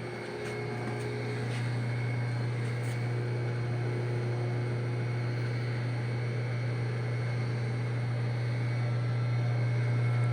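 A steady low mechanical hum with an even hiss of air over it, unchanging throughout, and a few faint clicks in the first few seconds.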